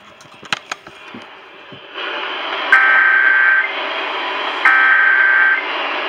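Emergency Alert System SAME header tones: buzzy digital data bursts about a second long, two of them about two seconds apart, coming through a broadcast over a steady hiss that starts about two seconds in.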